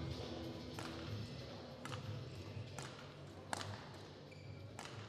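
Badminton racket strikes on a shuttlecock in a rally, five sharp hits about a second apart, over the low hum of a sports hall. The tail of intro music fades out in the first second.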